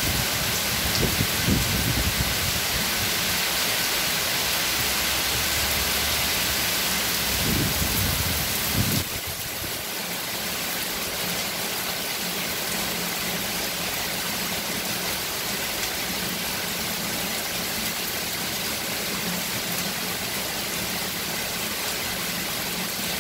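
Heavy rain pouring steadily on trees, leaves and a flooded paved yard, a dense even hiss that eases slightly about nine seconds in. A few brief low rumbles come in the first nine seconds.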